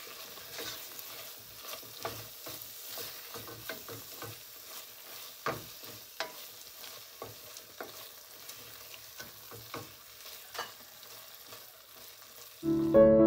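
Wooden spoon stirring and scraping spiced dried-beef jerky in a stainless steel pan, with a light frying sizzle in butter and irregular clicks of the spoon against the pan. Piano-like music comes in suddenly near the end.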